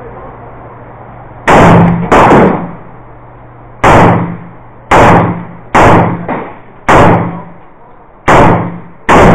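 AR-15 pistol fired as single shots in slow, uneven succession: about eight loud reports, between half a second and a second and a half apart, each with a short ringing tail.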